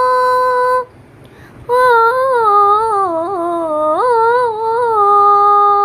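A woman singing an Assamese song unaccompanied. She holds a long note, breaks for a breath about a second in, then sings a wavering, ornamented phrase that settles into another long held note.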